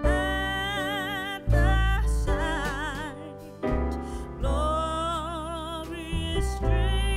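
Background music: a song with a singer holding long notes with wide vibrato over deep bass notes.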